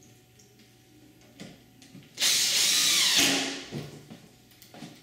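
Makita cordless drill driver running for about a second, driving a screw into the hinge side of a uPVC window sash, its pitch falling slightly as it goes. A few small clicks of handling before and after.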